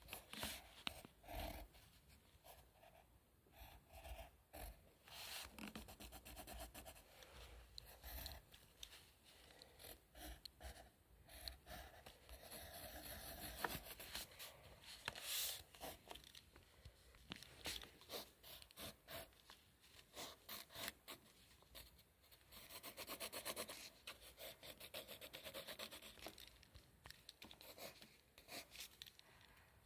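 A pencil scratching on paper, faint: many short sketching strokes, with a couple of longer stretches of rapid back-and-forth strokes.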